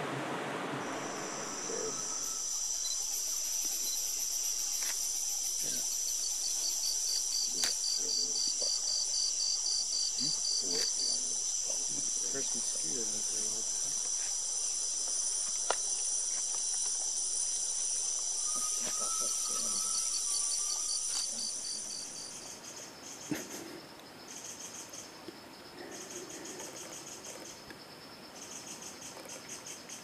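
A chorus of insects trilling, steady and high-pitched. About two-thirds of the way through it changes to trills that start and stop every second or so. A rushing noise fades out in the first couple of seconds.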